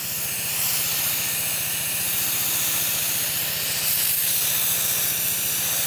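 Can of Ultra Duster air duster spraying continuously through its straw in one long, loud hiss, jetting freezing propellant onto a lock of hair. A low steady hum runs underneath.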